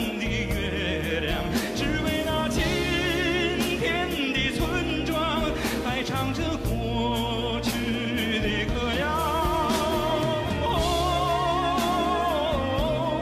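A song: a singer holding long notes with wide vibrato over an accompaniment of sustained bass notes and occasional percussion hits.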